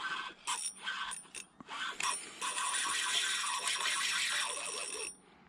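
Spinning reel's drag buzzing as a hooked fish pulls line off the spool. It comes in a few short spurts, then a steady run of about three seconds starting about two seconds in.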